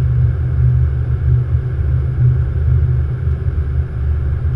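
Steady low rumble of a Boeing 777 flight deck on final approach: the airflow and engine noise of the airliner in flight, with no distinct events.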